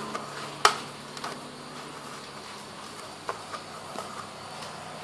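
A tin can rubbed upside down against a rough cement floor to open it without a can opener: a steady scraping grind, with one sharp knock about half a second in and a few lighter taps later.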